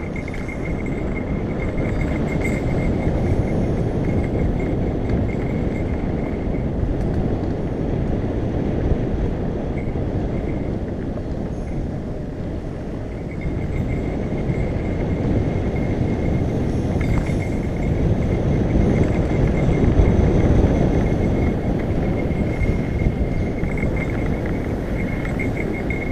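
Mountain bike rolling fast down a dry dirt singletrack, heard from a helmet-mounted camera: a steady rumble of tyres and wind on the microphone. A thin, high whine comes and goes over it.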